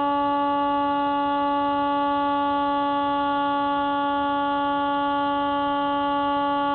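Electric motor and propeller of a Spyhawk FPV model plane running at a steady throttle, a loud, even, high-pitched whine.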